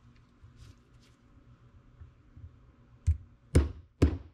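A steel hammer tapping a handle wedge, held in needle-nose pliers, into the top of a new hickory handle in the eye of a ball-peen hammer head. The wedge is being driven in to lock the head on. Three sharp knocks come about half a second apart, starting about three seconds in.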